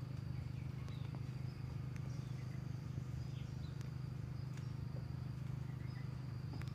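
Insects trilling faintly in one steady high note over a constant low rumble.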